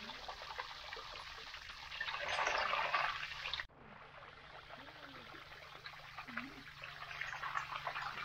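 Liquid pouring and trickling back into a large open vat of frothy candy liquid, with a steady splashing, crackly trickle. It swells louder about two seconds in, breaks off abruptly just before the middle, then carries on.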